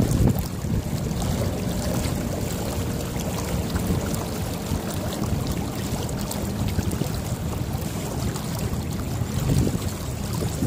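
Wind buffeting the microphone aboard a small sailboat: a low, uneven rumble that holds steady throughout.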